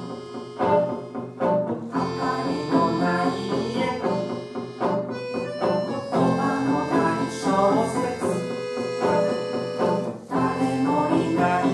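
A live band playing a passage of a song: several instruments sounding a lively tune in quick, short notes, with no words sung.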